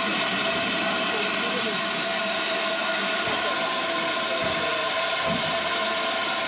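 USATC S160 class 2-8-0 steam locomotive No. 2253 standing with steam hissing steadily at an even level.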